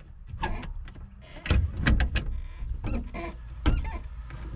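Mini excavator cab's fold-up front window glass being pushed down and seated in its frame onto foam strip: a run of knocks and clunks, the loudest cluster about a second and a half in, with another sharp knock near the end.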